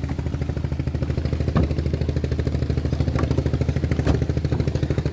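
Boat engine idling with a steady, fast, even throb, with a few faint clicks and knocks over it.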